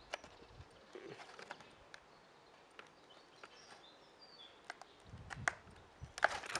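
Faint clicks and taps of a cardboard toy box being handled and opened, with louder handling knocks and a low rumble near the end. A few faint bird chirps sound in the middle.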